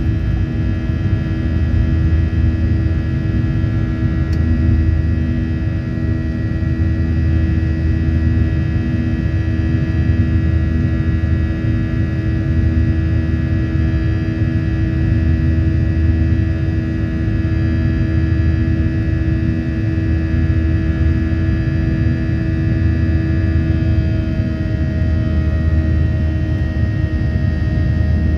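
Jet airliner engines heard from inside the passenger cabin during the takeoff climb: a loud, steady rumble with several steady humming and whining tones, which shift slightly a few seconds before the end.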